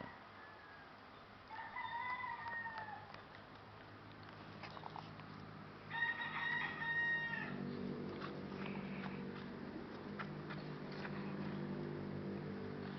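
A rooster crows twice, each crow a single drawn-out call about a second and a half long. About halfway through, a low steady droning hum sets in and carries on.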